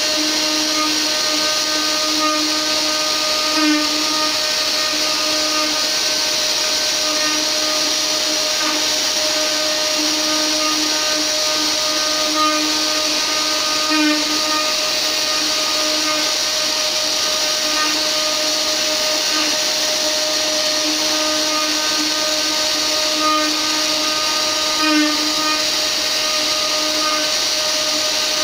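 Mini CNC router's 500 W spindle running steadily as its D4 R1 bit carves a wooden relief. A steady high whine and cutting noise, with a lower tone that comes and goes and brief louder bites roughly every eleven seconds.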